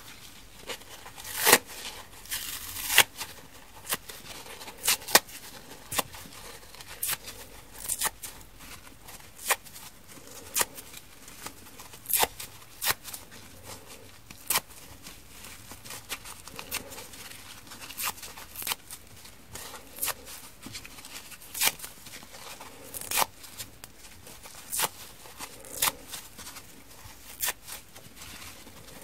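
Soft foam of scented kitchen sponges being ripped apart by hand. Short, crisp tearing sounds come about once a second, sometimes two close together, with soft rustling of the foam between.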